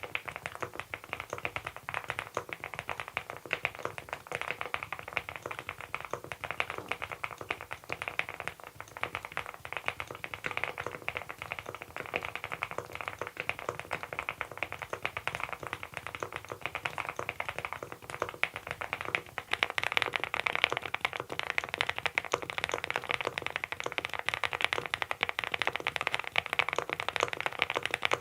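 Fast, continuous typing on a Monstargear Ninja87 Pro ALU aluminium-case mechanical keyboard fitted with Adelie switches: a dense run of key clacks, growing louder and busier about two-thirds of the way in.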